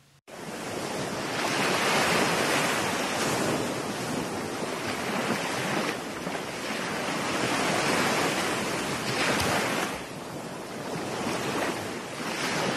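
Sea surf breaking and washing up a sandy beach, a steady rush that swells and eases every few seconds.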